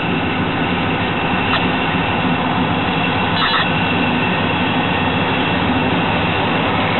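Wisconsin Central EMD SD45 diesel-electric locomotives and their 20-cylinder two-stroke engines passing close by, giving a steady, heavy engine drone.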